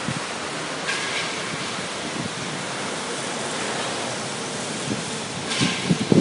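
Steady rushing background noise of a factory, with two short hisses, about a second in and near the end, and a few knocks in the last second.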